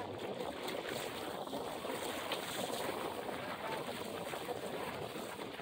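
Choppy river water splashing and lapping against the hull of a sailing felucca under way, a steady wash with wind on the microphone.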